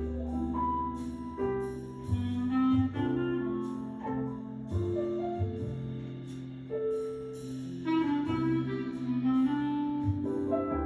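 Instrumental background music: a melody of held notes over a sustained bass line, with no singing.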